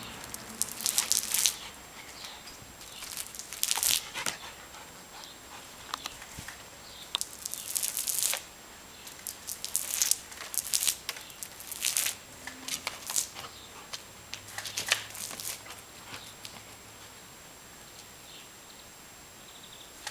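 Short hissing bursts of water spray, each up to about a second long and a few seconds apart, as a Malinois–Dutch shepherd dog plays at catching the jets, with the dog's own noises in between.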